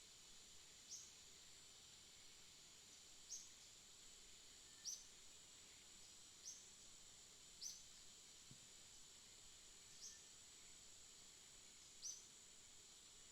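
Faint bird chirps: short, high, down-slurred calls repeated seven times, about every one and a half to two seconds, over a steady high-pitched drone.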